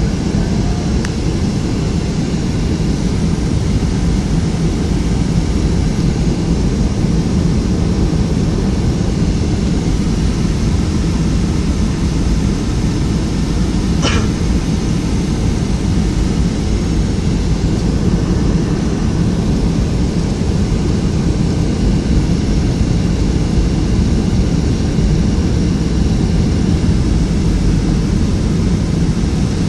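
Steady cabin noise inside a Boeing 757-200 airliner: the constant rush of its engines and airflow, heaviest in the low end with a faint steady hum. A single short click sounds about halfway through.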